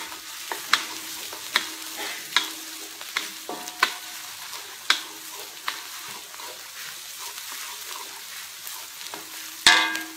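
Chopped shallots and garlic sizzling in oil in a metal wok while a wooden spatula stirs them, knocking and scraping against the pan about once a second. Near the end there is a louder clatter as the spatula is set down in the wok.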